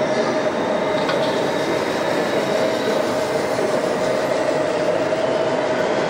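Steady mechanical whine and rumble of radio-controlled model trucks driving slowly in a line, with a constant tone.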